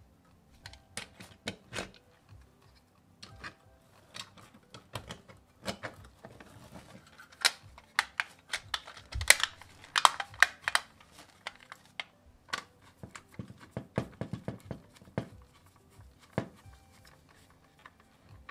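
Handling noise of a diecast model car turned over by gloved hands on a wooden table: irregular clicks and knocks from its body and wheels, with light rustling, busiest in the middle.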